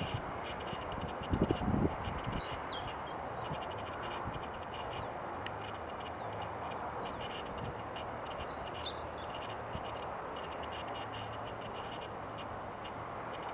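Open-country outdoor ambience: a steady rush of wind with a constant chatter of many distant birds. Twice a bird gives a quick series of high, falling whistled calls. A few low thumps come about a second and a half in.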